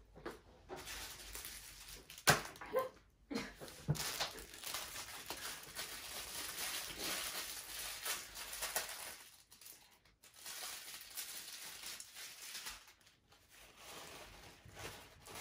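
A few sharp crunches about two seconds in as a fried crab rangoon is bitten, then a long rustling and crinkling as a paper napkin is handled and picked at with fingernails.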